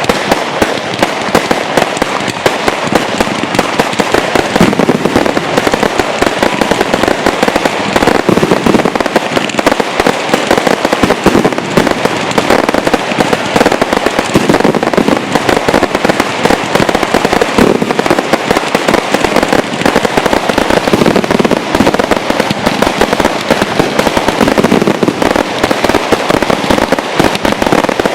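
Fireworks finale: a dense, continuous barrage of aerial shell bursts and crackling, the bangs coming so fast they run together.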